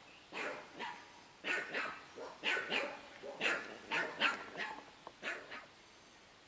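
A dog barking, a quick run of barks that often come in pairs, stopping shortly before the end.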